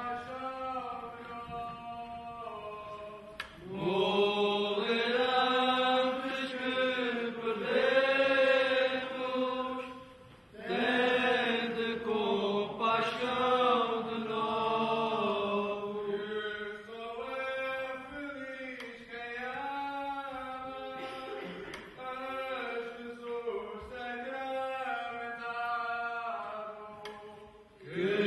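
A group of male pilgrims chanting a prayer in unison, in slow phrases of long held, gently bending notes. The chant swells a few seconds in, breaks off briefly near the middle and then goes on more softly.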